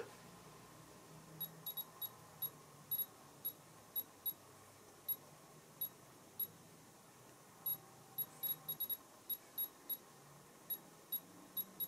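Aranet Radiation sensor's piezo buzzer giving short, high-pitched beeps at uneven intervals, some in quick clusters, like a Geiger counter's clicks. It is signalling a raised dose rate, about 37.7 µSv/h, from the radium dial of an old watch.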